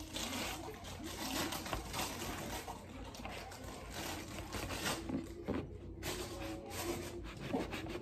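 Knife and fork cutting a T-bone steak in a black plastic takeout container: quiet, uneven scraping with small clicks of the cutlery against the plastic.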